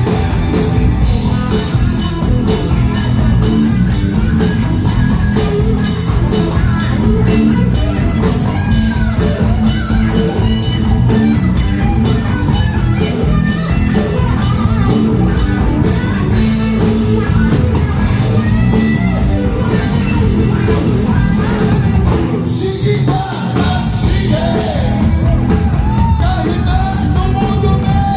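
Rock band playing at full volume, electric guitar over a steady drum beat, with singing.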